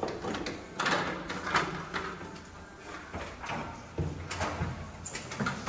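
Distribution board cover being pulled off and handled: a series of short knocks and scrapes.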